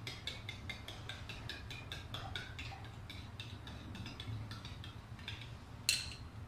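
Metal spoon whisking yogurt and water in a ceramic bowl, clinking against the bowl about five times a second, with one louder clink near the end.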